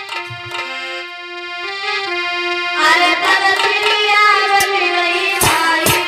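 Harmonium holding steady reed notes. About halfway in, a woman's voice starts singing a long, wavering held note over it, and a drum strikes near the end.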